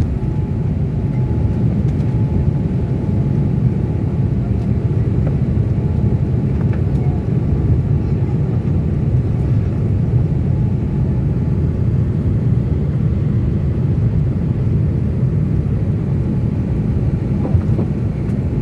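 Airliner jet engines and rushing air during takeoff: a steady, loud low rumble.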